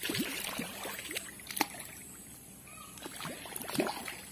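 Fish splashing and plopping at the pond surface as they snap up feed: a scatter of small, irregular splashes.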